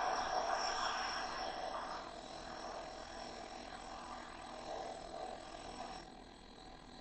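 Power grinder working a steel tool tip to clean it up, a rough grinding noise that is loudest in the first two seconds, eases off, and drops away about six seconds in, with a faint steady high whine throughout.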